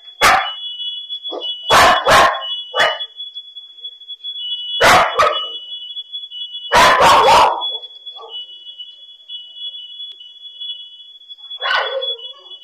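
Dog barking in loud, irregular bursts, some doubled or tripled in quick succession, with a lone bark near the end. Under it a smoke alarm beeps continuously at a high pitch, set off by a kitchen fire.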